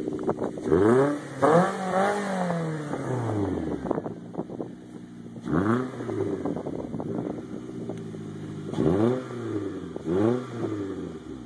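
Nissan Altima coupe's 2.5-litre four-cylinder engine revved through a newly fitted LSD aftermarket dual exhaust: about five quick throttle blips, each a rise and fall in pitch, one held longer about two seconds in, with the engine idling in between.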